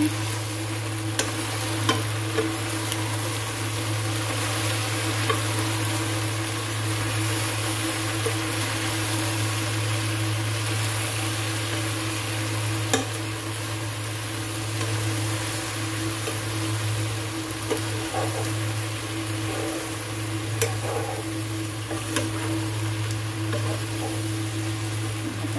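Chicken feet sizzling steadily in a pan as adobo cooks, with a few sharp clicks of a utensil against the pan.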